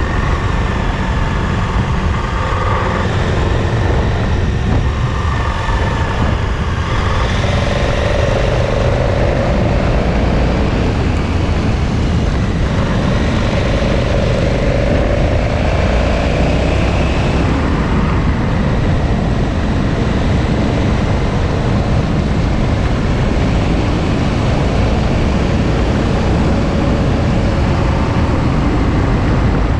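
KTM 1290 Super Adventure's V-twin engine running on the move, its note rising and falling, under a steady heavy rumble of wind on the microphone.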